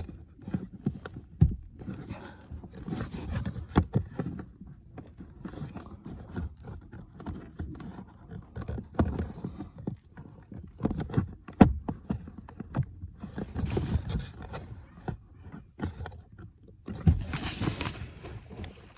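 Irregular scraping, rustling and knocking of a cabin air filter and its plastic housing being handled as the filter is pushed and worked into place, with scattered sharp clicks and a louder rustling stretch near the end.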